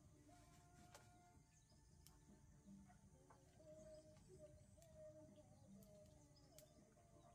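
Near silence: faint outdoor ambience with faint, wavering bird calls and a few soft clicks.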